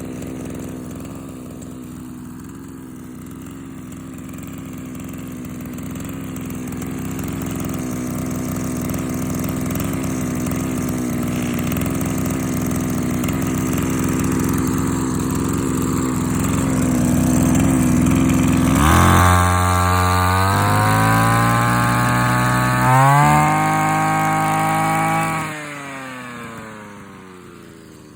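Komatsu Zenoah BC2211EZ brush cutter's small two-stroke engine running at idle, then revved up about two-thirds in, its pitch climbing and stepping higher, before the throttle is released and the revs fall away near the end.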